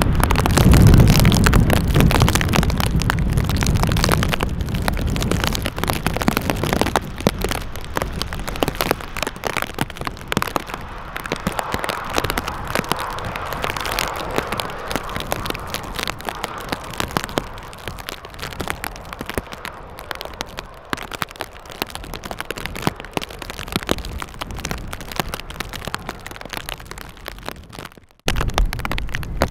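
Jet airliner rumble, loudest at the start and fading over several seconds, under constant wind buffeting and crackling on the microphone in rain and strong wind. The sound cuts out abruptly near the end.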